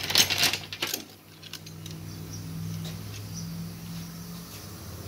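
Old belt tensioners and idler pulleys clattering against a metal workbench as they are handled, a quick run of metal knocks and rattles in the first second. A steady low hum follows.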